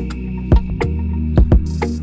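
Electronic background music: a held bass note under sharp percussive hits.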